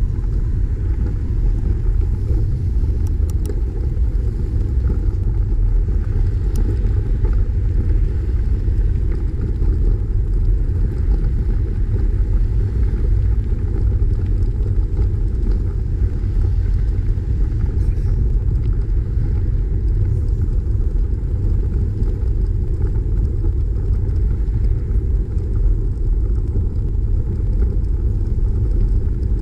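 Steady low wind rumble buffeting a camera microphone on a moving bicycle, blended with road noise.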